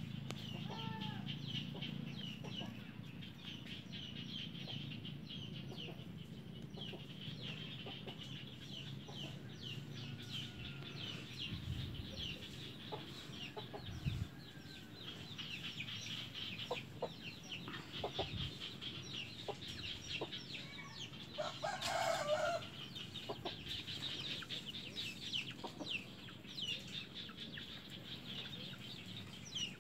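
Chickens clucking in the background, with a steady stream of rapid high chirps. One louder, longer call comes about 22 seconds in.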